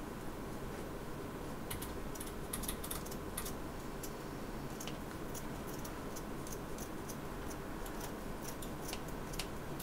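Scissors cutting through the punch needle fabric: a run of quick, irregular snips that starts about two seconds in.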